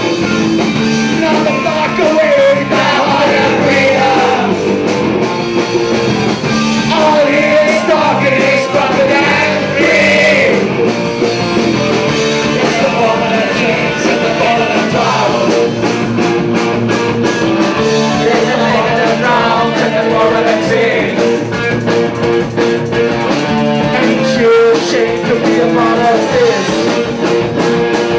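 Live rock song played by a band with guitar, and several singers singing into microphones.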